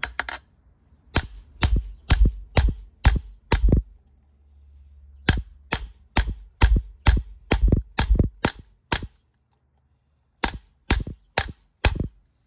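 Hammer blows on a bearing driver, tapping a new inner axle bearing into a Dana 44 TTB differential housing: sharp strikes about two a second in three runs with short pauses, some twenty in all, until the bearing seats.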